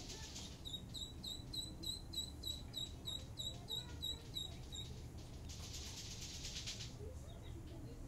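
Hand-fed nestling birds cheeping to beg for food: a steady run of short, high chirps, about three a second, for some four seconds. A raspy hissing buzz follows for about a second and a half, then fainter chirps near the end.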